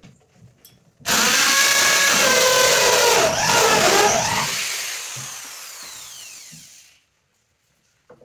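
Power drill starting suddenly about a second in and running loud with a whine for about three seconds, then winding down with a falling whine that fades out by about seven seconds.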